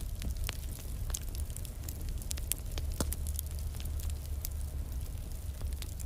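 Fireplace fire crackling, with frequent small pops and snaps over a steady low rumble of the flames.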